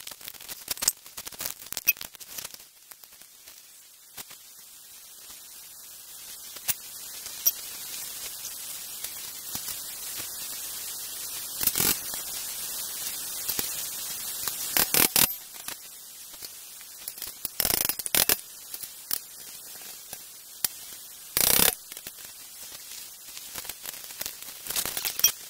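Sharp metallic clicks and knocks from hand work on a steel rail track, over a steady hiss. Several louder knocks come through the middle and later part.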